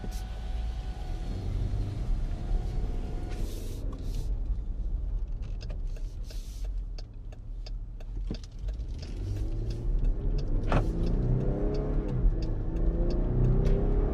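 Dodge Durango GT's 3.6-litre V6 heard from inside the cabin while driving, with a steady low rumble and a few light clicks. In the last few seconds the engine note rises and gets louder as the SUV accelerates.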